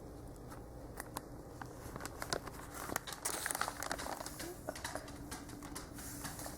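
Plastic packaging crinkling and rustling as it is handled by hand, with many small crackles, building up and getting louder about two seconds in.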